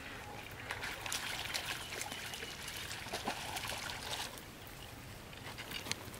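A hooked catfish thrashing at the pond surface, a dense run of splashing that stops about four seconds in. A few faint knocks follow near the end.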